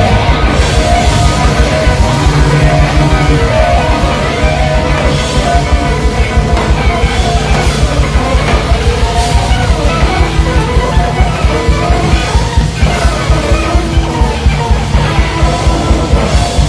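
Loud, dense rock music from an ensemble of rock rhythm-section instruments, with a fast, even pulse in the low end.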